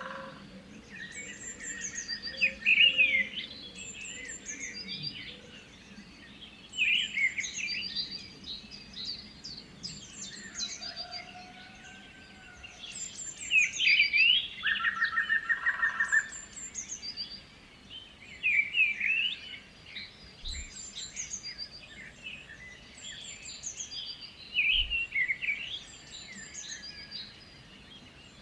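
Several songbirds singing together, their phrases overlapping. A high, descending phrase recurs every two to three seconds, and about halfway through a lower rapid trill sounds for a second or two.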